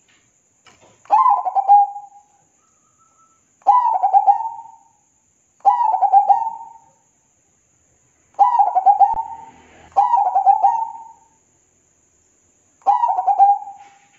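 Zebra dove (perkutut) cooing: six short phrases of rapid stuttering notes, each about a second long, separated by gaps of one to two seconds.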